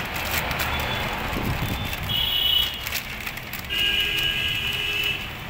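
Plastic packaging crinkling and rustling as a bag is torn open and the item inside is unwrapped. Two steady high beeping tones sound over it, a short one about two seconds in and a longer one of about a second and a half near the end.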